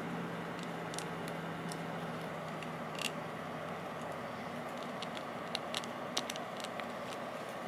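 LEGO pieces being handled and pressed together: scattered small plastic clicks and taps, with a cluster of them in the second half, over a steady background hiss.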